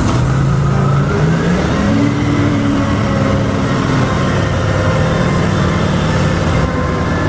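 Large truck engine running, revving with its pitch rising about a second in.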